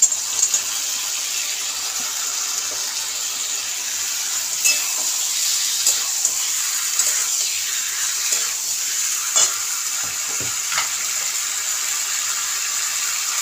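Tomato and mustard oil sizzling steadily in a kadai as boiled potato wedges are tipped in and turned with a metal spatula, which clicks and scrapes against the pan now and then.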